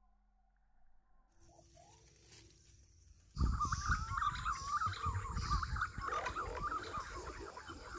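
Quiet at first, then a little over three seconds in a dense chorus of birds chirping starts suddenly: many short rising and falling calls, with a low rumble under them.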